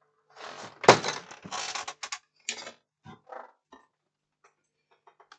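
Handling noise from a laptop's plastic casing being worked on the bench: a sharp knock about a second in, then scraping and rustling, then a few light clicks.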